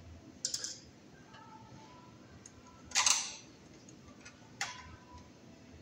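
A few sharp clicks and one louder, short scrape about three seconds in: a copper ground wire being bent and worked into place against the steel enclosure of a breaker sub-panel.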